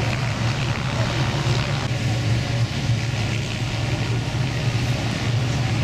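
Several light helicopters flying in, with a steady engine and rotor drone. A thin whine joins it about two seconds in.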